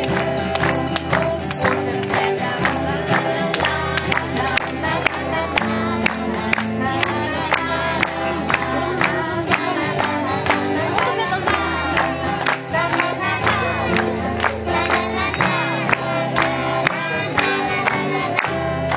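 Children singing together into a microphone over amplified music with a steady beat.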